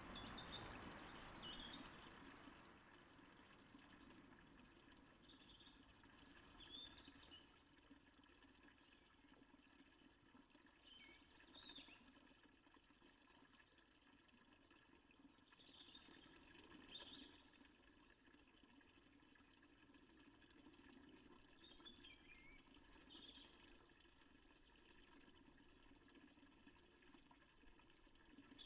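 Fountain water running faintly and steadily, with birds chirping briefly every five seconds or so.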